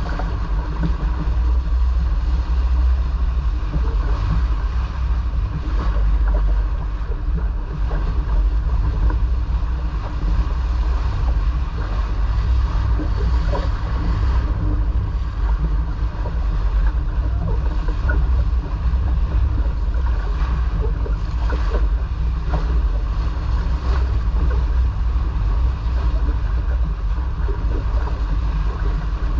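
Wind buffeting the microphone and water rushing past the hull of a sailboat under way, a steady low rumble with a hiss of water.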